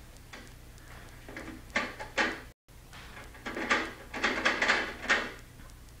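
Kitchen handling noises: two short clatters, then a quick run of clattering and rustling as a box and kitchen items are handled on a counter. The film soundtrack is picked up off a screen, with a steady low hum underneath.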